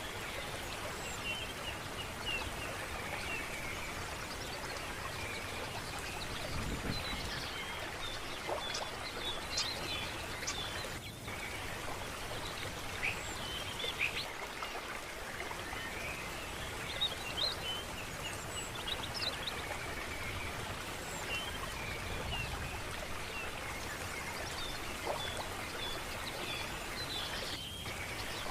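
Steady running water with birds chirping over it, many short high calls scattered throughout.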